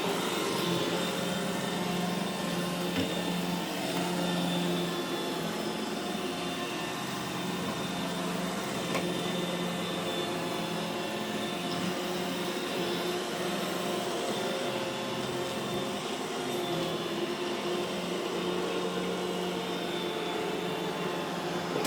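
iRobot Roomba E5 robot vacuum running, a steady motor hum and brush whir that holds even throughout.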